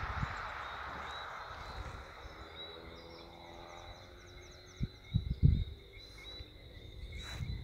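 Evening chorus of whistling frogs: many high, repeated chirps blend into a steady shrill tone. A rushing noise fades out over the first few seconds, and a few low thumps of wind on the microphone come about five seconds in.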